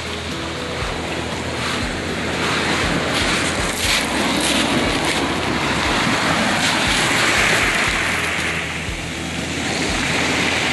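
Surf washing up over a pebble beach, swelling to a peak about two thirds of the way through, easing off, then building again near the end. There are scattered sharp clicks and wind buffeting the microphone.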